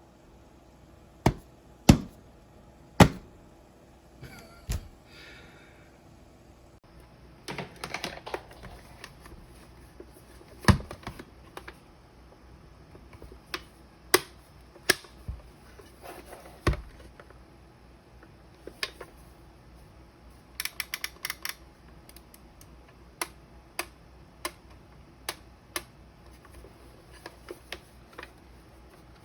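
Irregular sharp clicks and knocks of a hard-plastic flip clock being handled, with a quick run of clicks about two-thirds of the way through.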